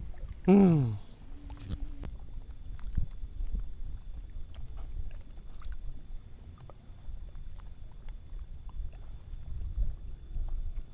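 A short vocal exclamation that falls in pitch about half a second in, then a low rumbling of wind on the microphone and water sloshing, with scattered small knocks.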